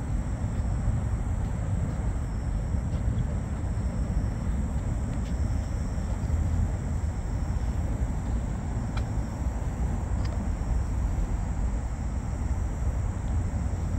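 Night-time outdoor ambience: crickets chirring steadily in a high register over a steady low rumble, with a couple of faint clicks about two-thirds of the way through.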